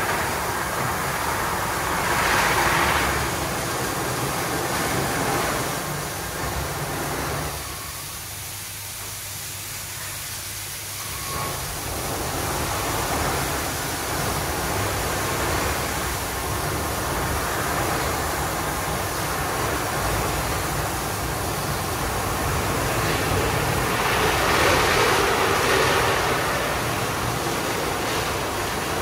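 Christ GENIUS C160 rollover car wash running through its wash program: a steady rush of machine and water noise that eases off for a few seconds about eight seconds in and swells again near the end.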